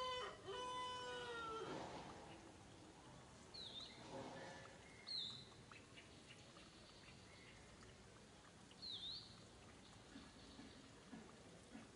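A macaque's drawn-out, tonal cry in the first two seconds, like a cat's meow. Later there are three brief high chirps.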